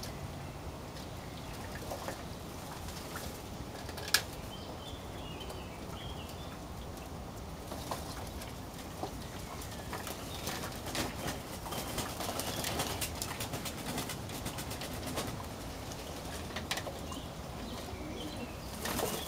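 A crowd of domestic pigeons jostling on a tray: wings flapping and fluttering, many small clicks, one sharp loud click about four seconds in, and some cooing. The flapping grows busier about halfway through.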